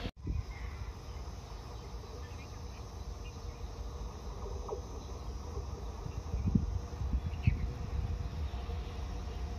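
Faint insects chirping over a low, steady rumble, with two soft knocks about a second apart two-thirds of the way in.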